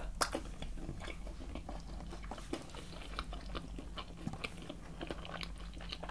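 Close-miked ASMR eating: a person chewing and biting food, a quick, uneven run of small mouth clicks.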